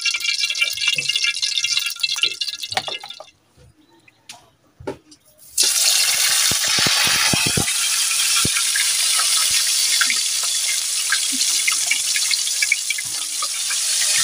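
Fish frying in hot oil in a wok: after a brief quiet gap, a loud sizzling hiss starts suddenly about five and a half seconds in, with scattered crackles and pops, and keeps on steadily.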